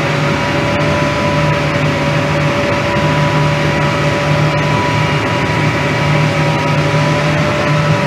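John Deere 8210 tractor's six-cylinder diesel running steadily, heard from inside the cab, a low drone with a steady whine over it.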